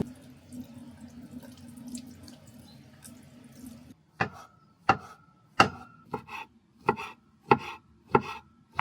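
Knife chopping on a cutting board: about seven sharp, evenly spaced strokes, roughly one and a half a second, each with a short ringing note, starting about halfway through after a faint low hum.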